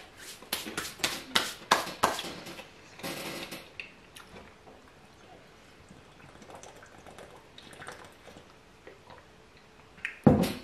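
Hands brushed and rubbed together with a quick run of dry swishes, followed by a short rustle. Near the end a plastic water bottle is set down on the table with a single dull thump.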